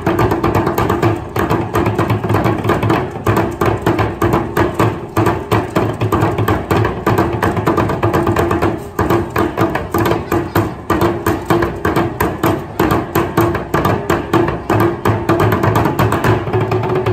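Steel oil barrels beaten with sticks by three drummers in a fast, steady ensemble rhythm of dense, quick strikes, over sustained tones from a backing music track.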